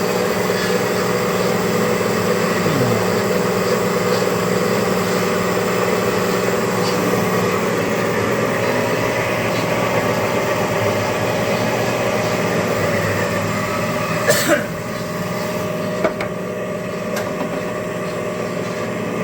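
Lian Feng LF-12A automatic band saw with its 2 hp three-phase motor running, a steady hum with several tones, while its powered feed roller tries to push forward a board that won't advance. About fourteen seconds in there are two sharp knocks, after which the running sound is a little quieter, then a few lighter clicks.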